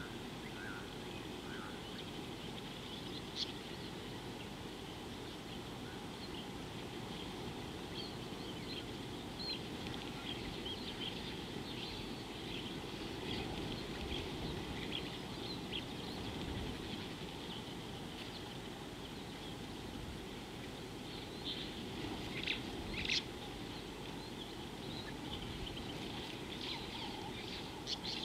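Small birds chirping in short, scattered high calls over a steady low background noise, with a few louder calls late on.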